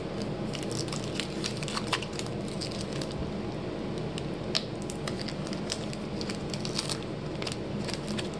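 Plastic wrapper of a trading-card pack crinkling and crackling in irregular quick bursts as it is handled and worked open.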